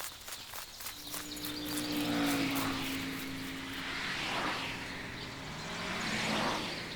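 An engine passing by: a steady humming tone that drifts slightly down in pitch, over a rushing noise that swells and fades twice.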